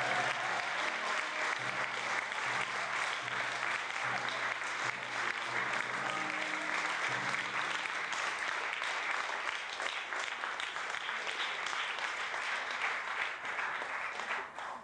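Audience applauding with dense clapping. Instrumental music plays low held notes under it for about the first half. The applause cuts off abruptly at the end.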